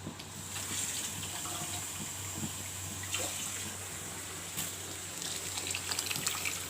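Water pouring and splashing steadily, with a few small knocks.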